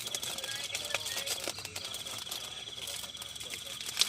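Insect trilling steadily at a high pitch, breaking off briefly about a second and a half in, with scattered light clicks and one sharp click near the end.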